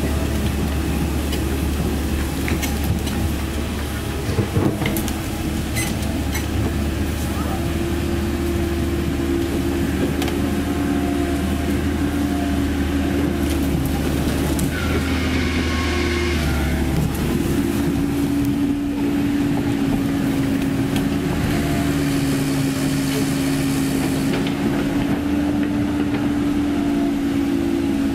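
Komatsu PC130F-7 crawler excavator's diesel engine running steadily, its pitch shifting slightly, while the steel tracks clank as the machine travels and turns.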